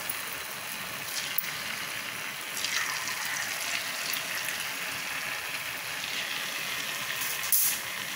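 Potato and rice-flour dough pieces deep-frying in hot oil in a kadai, a steady sizzle with bubbling. There are a few small clicks and a brief louder burst about seven and a half seconds in.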